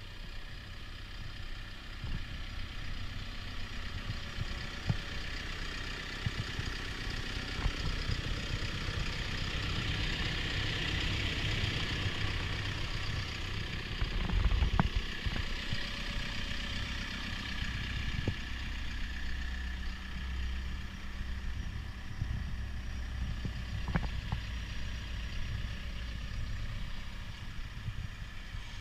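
CAT 420F backhoe loader's diesel engine idling steadily, with a few short knocks, the loudest about halfway through.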